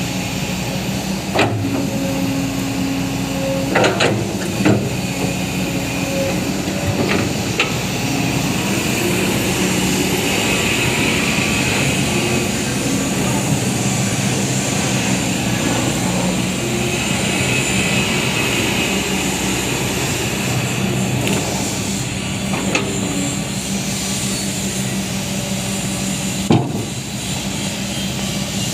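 Kobelco SK200 hydraulic excavator's diesel engine running steadily, with a hydraulic whine that swells and fades. A few sharp metallic knocks come through, one near the start, two around four seconds in and one near the end.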